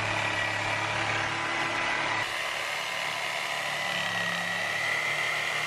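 Electric power saw running with a steady high whine, splitting a beef carcass down the centre of the backbone.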